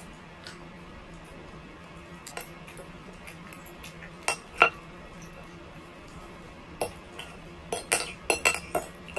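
Fork and spoon clinking and scraping against a plate while eating: a few scattered clinks, the loudest about halfway through, then a quick run of clinks near the end.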